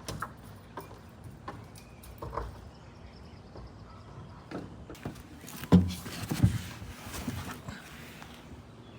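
Scattered knocks and thumps of handling and movement on a van roof around a roof vent fan, with the loudest pair a little past halfway.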